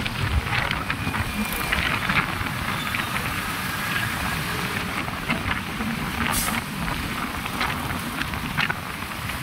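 Wind rushing and buffeting over the microphone while riding a motor scooter at around 50–60 km/h, over road and traffic noise.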